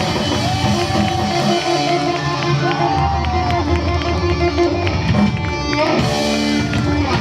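Live rock band playing, with electric guitar to the fore and the crowd audible beneath.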